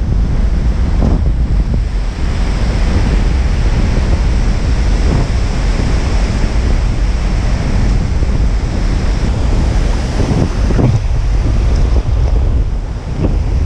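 Strong wind buffeting the microphone over the steady rush of heavy surf breaking, with a few brief surges in the wind.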